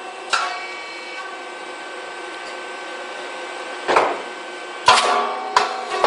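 Puffed grain cake machine running: a steady mechanical hum, broken by sharp metallic bangs with a short ring, once about half a second in and twice more near four and five seconds, as the machine works through its pressing and popping cycle.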